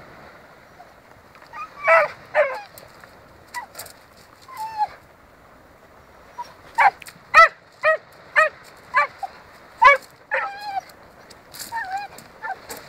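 Dog barking and whining in excited play, jumping at a driftwood log held above it. Two sharp barks come first, then a quick run of sharp barks about two a second in the middle, with falling whines between them and near the end.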